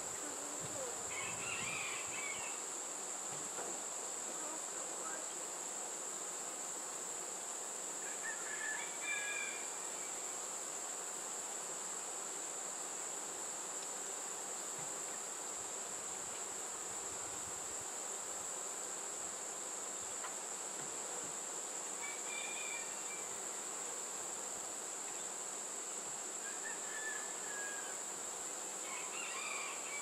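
Honeybees buzzing around an open hive box full of comb, over a steady high-pitched insect drone, with a few short chirps now and then.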